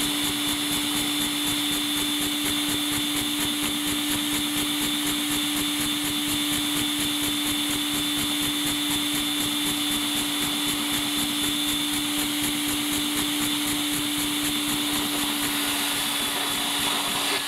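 Vacuum cleaner motor running steadily, sucking air through a LEGO vacuum engine with angled valves, with a fast, even rattle from the spinning LEGO engine's moving parts.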